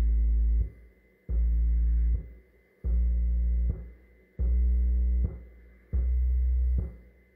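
Dayton Ultimax 18-inch subwoofer driven at about 100 watts with a stepped-sine distortion sweep: a series of low bass tone bursts, each just under a second long, repeating about every one and a half seconds. Each step comes a little higher in frequency.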